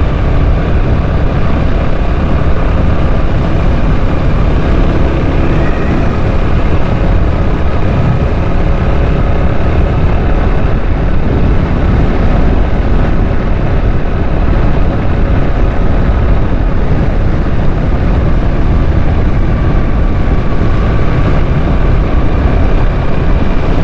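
Motorcycle riding along at a steady speed, its engine running evenly under a heavy, steady rumble of wind on the microphone.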